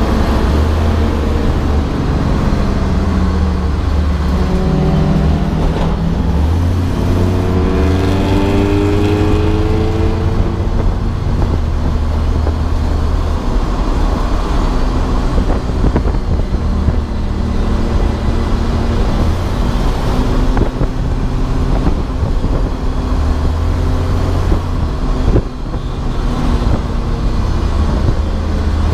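Race car engine pulling hard on track, its pitch climbing twice through the revs in the first third, then running at steady high revs with heavy road and wind noise.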